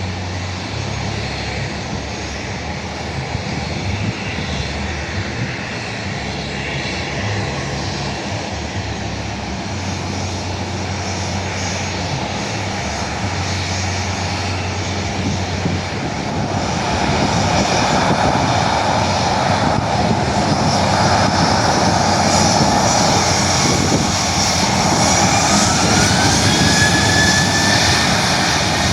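Jet airliner's engines running with a steady roar that grows louder about halfway through, with a thin rising whine near the end.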